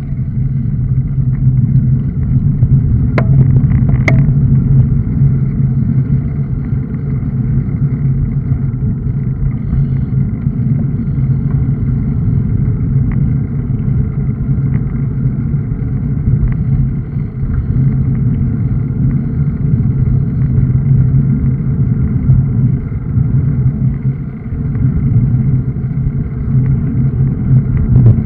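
Steady wind rush and road rumble on a bicycle-mounted action camera's microphone while riding a road bike, with a couple of sharp clicks about three and four seconds in.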